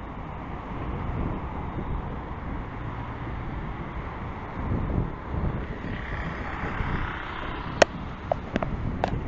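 Road traffic: a steady low rumble of passing cars, with one car's tyre noise swelling about six seconds in. Several sharp clicks come near the end, the first the loudest.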